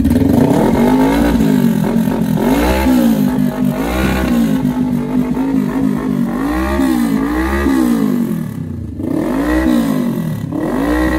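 Kawasaki Versys 650's parallel-twin engine revved in repeated throttle blips, its pitch rising and falling about eight times.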